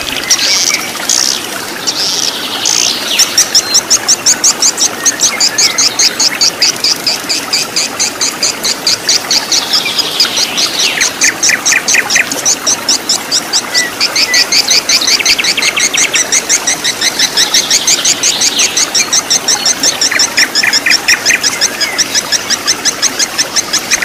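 Birds singing in rapid, repeated high trills and chirps over the steady rush of a shallow stream running over rocks.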